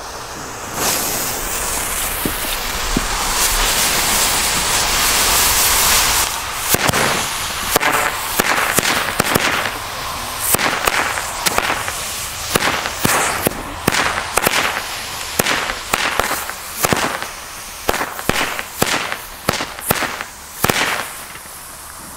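A 32-shot firecracker strip going off: a few seconds of hissing as it burns, then a long uneven run of separate sharp bangs, one or two a second, some much weaker than others. The tester calls it more fizzles than anything else.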